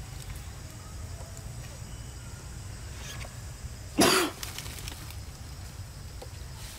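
A macaque gives one short, harsh, grunt-like call about four seconds in, over a steady low rumble and faint rustling.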